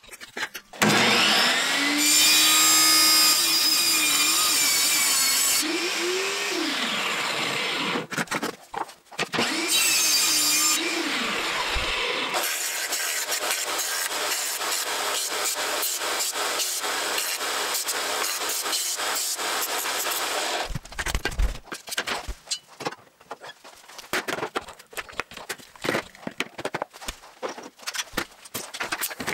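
Small bench belt sander running with a piece of wood pressed against its narrow belt: the motor hum rises as it spins up, and steady sanding noise follows. The sander stops and restarts twice in the first dozen seconds, then runs on steadily. From about two-thirds of the way in, the machine sound gives way to irregular light clicks and knocks.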